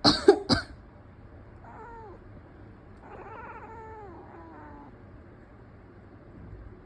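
A person coughs sharply at the very start, the loudest sound here; the sleeping cat then answers with two drawn-out meows, a short one and then a longer one, each falling in pitch, as if disturbed by the cough.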